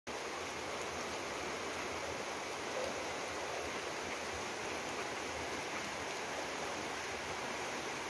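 Muddy, fast-flowing river rushing steadily over rocks, a constant even sound of running water.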